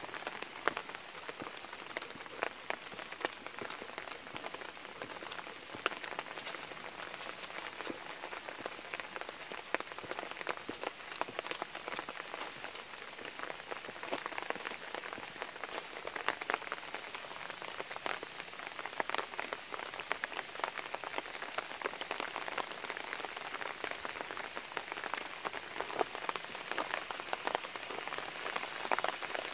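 Light, steady rain falling, with many separate drop hits ticking through it.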